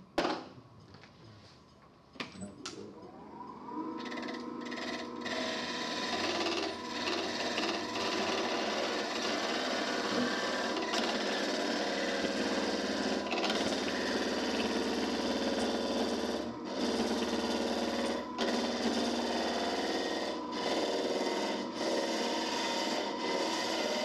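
Wood lathe starting up: a knock, then the motor's whine rising in pitch for about a second and holding steady. From about four seconds in, a turning tool cuts the spinning wood blank with a loud, steady cutting noise that breaks off briefly now and then.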